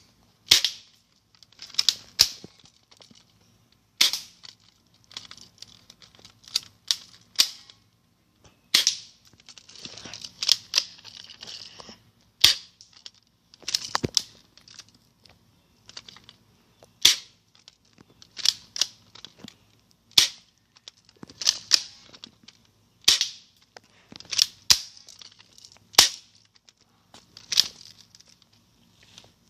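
Air-powered gun being fired repeatedly: about twenty sharp cracks at irregular intervals of one to two seconds, some in quick pairs, each with a short high hiss after it.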